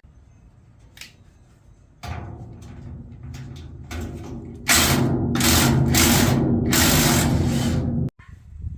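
Handheld power tool driving bolts on a machine's door latch: a lighter run starts about two seconds in, then several loud bursts come close together, and it cuts off abruptly near the end.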